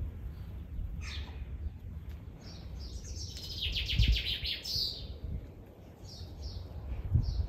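Small birds chirping in short repeated calls, with a fast trill about three seconds in.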